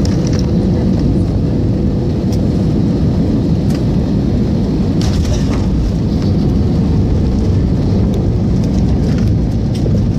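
Airliner cabin noise during landing: a loud, steady rumble of jet engines and rushing air heard from a window seat over the wing, with a few faint knocks.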